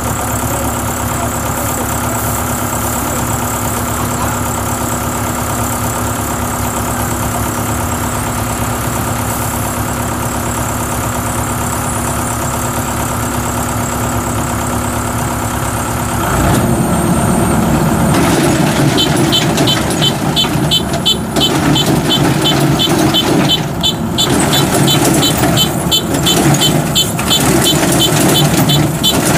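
A farm cart's engine running steadily as it hauls a load of rice sacks. About sixteen seconds in it gives way to louder combine harvesters running, with a high-pitched beeping repeating about four times a second.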